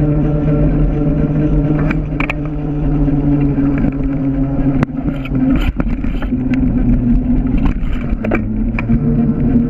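A mountain bike rolling along a paved bike path, its knobby tyres giving a steady hum over wind noise on the camera. There are a few sharp knocks from bumps in the surface.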